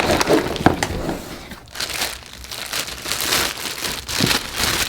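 Packaging crinkling and rustling in irregular bursts as a new impact driver is pulled out of its box.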